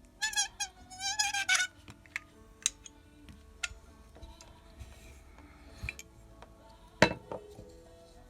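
Small clicks and taps from handling a wristwatch during a battery change, with a high, wavering squeak in the first second or so and one sharp, loud click about seven seconds in.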